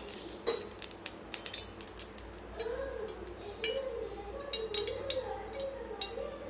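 A steel spoon clicking and tapping against a metal kadai as oil is spooned into the pan: a series of light, sharp, irregular clicks.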